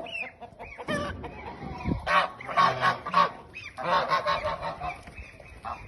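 Geese honking: a run of short, repeated nasal calls, several in quick succession through the middle.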